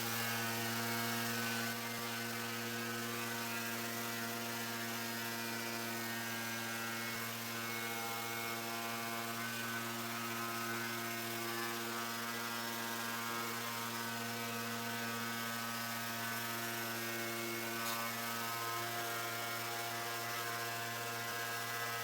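Electric motor humming steadily after spinning up just before, a single pitch with many overtones that holds level throughout.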